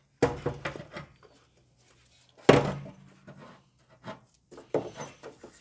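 A series of sharp knocks and clunks, the loudest about halfway through, as the top-mount intercooler is handled and fitted on the Subaru WRX engine.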